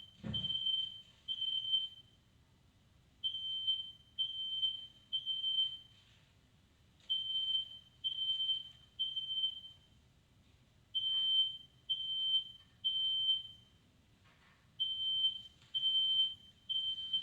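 Smoke alarm sounding a high, steady-pitched beep in groups of three, each group about four seconds apart: the temporal-three alarm pattern. Smoke in the room has set it off.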